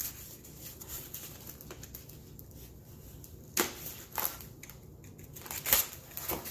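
Utility knife cutting along a cardboard mailing tube, with soft scraping and a few sharp clicks and cracks as the blade slices through and the cardboard flap is pulled open.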